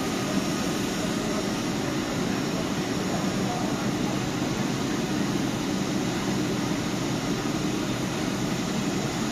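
Steady hum and whir of electric trains standing at the platform, with a murmur of passengers' voices underneath.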